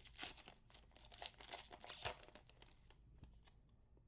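Plastic-foil wrapper of a baseball card pack being torn open and crinkled by hand: a run of quick crackles for about two seconds, then fainter rustling.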